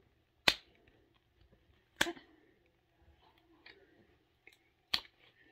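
Three sharp clicks about a second and a half apart, with faint rustling between them, from hands tugging at a stubborn zipper on a toy surprise package.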